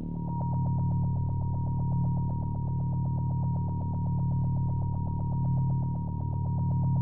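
Synthesizer intro music: a steady low drone under a high tone that pulses fast and evenly.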